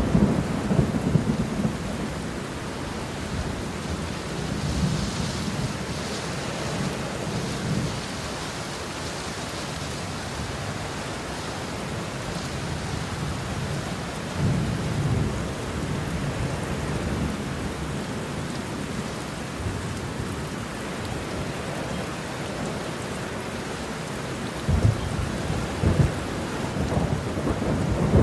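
Steady rain with thunder rumbling at intervals; the rumbles swell about halfway through and again near the end.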